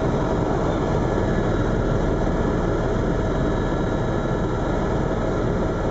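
Eurocopter EC130 EcoStar tour helicopter in flight, its turbine and rotors heard from inside the cabin as a loud, steady drone with several steady tones on top.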